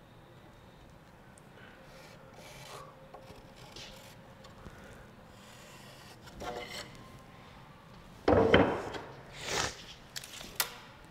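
Marker tip scratching faintly along a hickory board as a wooden handle template is traced, then a loud wooden knock and rattle about eight seconds in, another a second later, and a sharp click near the end as the template is lifted off and handled.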